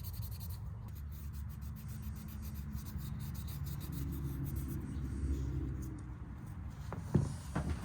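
Polishing wadding rubbed by hand over a pocket knife's bolsters and brass liners, giving a steady, low scrubbing. A few sharp knocks come near the end.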